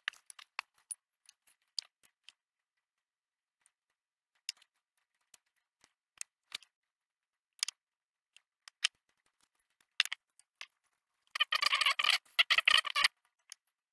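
Light scattered clicks and taps of small balsa parts being handled, then about eleven seconds in a couple of seconds of quick, scratchy rubbing strokes: abrasive paper sanding balsa by hand.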